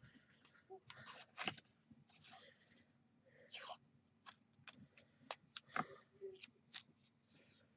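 Faint handling noises as washi tape and small craft-kit pieces are worked on a tabletop: scattered light clicks, taps and short rustles, with a cluster of sharper ticks about two-thirds of the way through.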